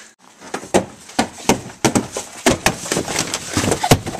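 Handheld camera being knocked about and rubbed against clothing: a string of irregular thumps and knocks with rustling.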